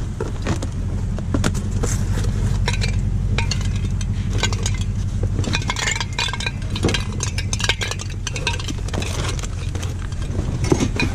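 A pickup truck's engine idling steadily, with hard household items clinking and clattering as a pile of curbside junk is rummaged through by hand.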